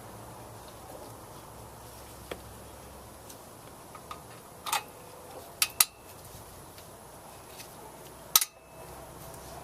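Scattered light clicks and clinks of small metal and plastic mower parts and tools being handled while a new carburetor is fitted: a few sharp clacks around the middle and one near the end, over a faint steady hum.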